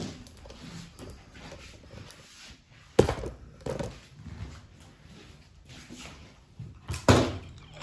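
Two single shots from a GHK gas blowback airsoft rifle, about four seconds apart, each a sharp crack with a short ring after it; fainter knocks fall between them.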